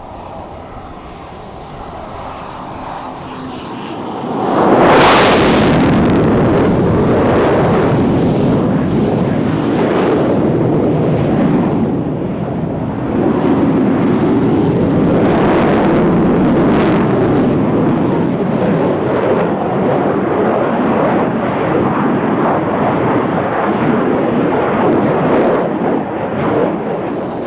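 Jet noise from a MiG-29 fighter's twin turbofan engines in a low display pass: it builds steadily for the first few seconds, jumps sharply to full loudness about five seconds in as the jet passes close, and stays loud as it manoeuvres.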